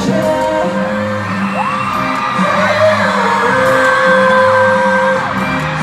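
Live pop concert in an arena: singing over the backing music, with the deep bass dropping out for most of the stretch, and a crowd of fans whooping and screaming.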